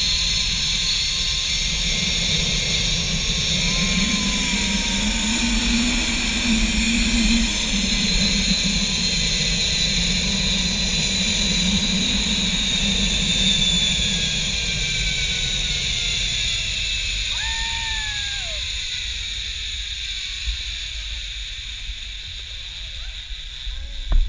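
A zipline trolley's pulleys run along the steel cable with a high whine that slowly falls in pitch, over the rush of wind on the microphone. Both fade over the last few seconds as the riders slow toward the landing.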